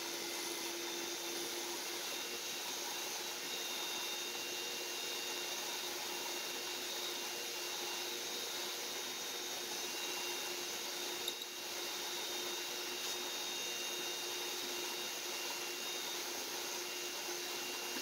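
Shop vacuum running steadily beside a drill press whose plug-cutting bit is boring plugs out of a walnut scrap, the bit's friction against the wood making smoke that the vacuum draws away. A brief click about eleven seconds in.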